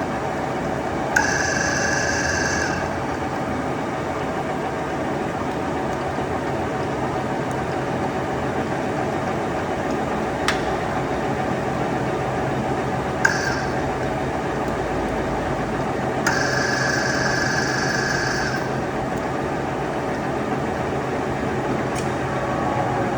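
STANKO 1M63 lathe running with a steady mechanical hum. A high-pitched whine comes in twice for about two seconds each, once briefly in between, with a few sharp clicks. Near the end the hum starts to drop in pitch.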